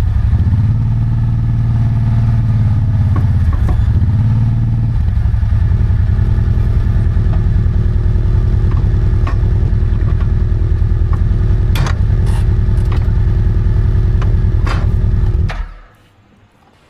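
An engine running steadily at a pulsing, even beat, with a few sharp clanks and knocks, then switched off near the end, where it dies away quickly.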